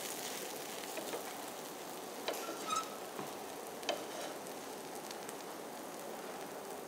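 An adai sizzles in oil on a hot dosa griddle just after being flipped, a steady hiss with a few light clicks about two to four seconds in.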